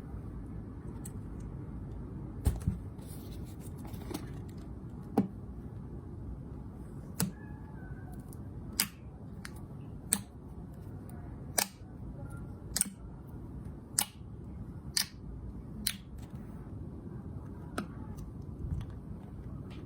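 Slime being handled, giving a dozen or so sharp clicking pops, roughly one a second, over a low steady background noise.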